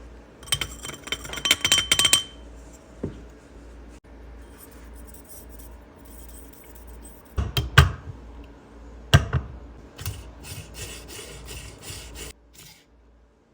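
Handling of espresso-making tools and the portafilter: small metal and glass clinks and scraping, with two sharp knocks in the middle.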